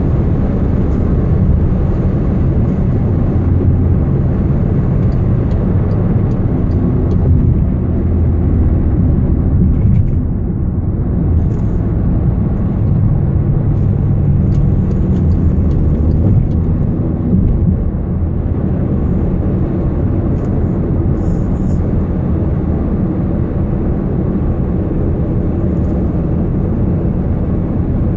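Low rumbling drone inside a Volkswagen Jetta TDI while driving, with a deeper 'woo' tone swelling about five seconds in and again midway. The owner hears this whooo and a constant wobbling rumble on the road as an unresolved fault.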